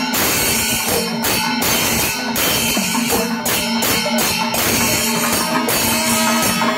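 Kerala temple percussion ensemble: many hand-slung drums beaten together in a steady rhythm, with a continuous clash of small hand cymbals.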